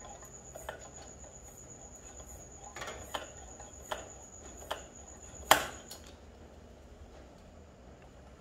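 Metal clicks and knocks from handling a pressure kerosene lantern's pump and valve fittings, about half a dozen in all, the sharpest about five and a half seconds in. A thin steady high-pitched tone runs underneath and stops about six seconds in.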